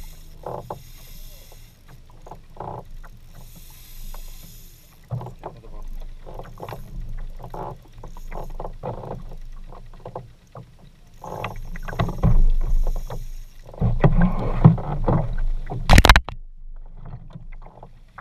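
Water slapping against a plastic fishing kayak's hull and the irregular rattle of a spinning reel being wound under load from a hooked fish, with a louder low rumble from about twelve to fifteen seconds in. A single sharp, loud knock near the end.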